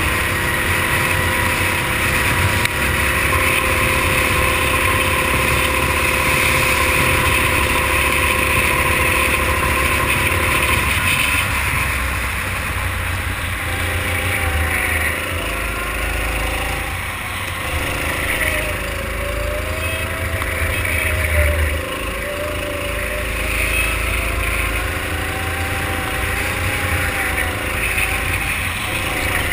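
Racing kart engine running hard, heard from onboard the kart: its pitch holds steady for about the first ten seconds, then repeatedly drops and climbs again as the kart lifts off and accelerates through a run of corners.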